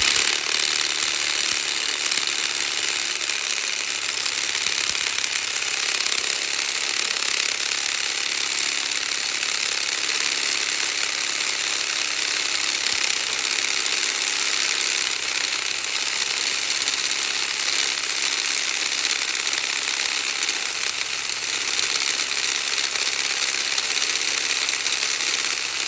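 Cordless drill running at high speed in reverse with a 29 mm bit, grinding steadily as it widens a drilled hole.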